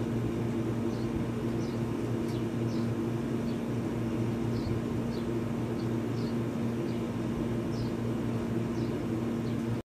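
A steady low mechanical hum from a running appliance, with faint short high chirps about once a second.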